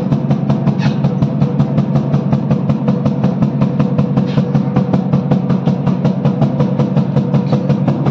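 A drum beaten in a fast, even rhythm of about six strokes a second, over a steady low drone.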